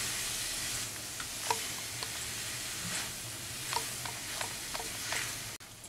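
Grated papaya sizzling in oil in a wok while a wooden spatula stirs it, with scattered light scrapes and taps of the spatula against the pan. The sound cuts off suddenly near the end.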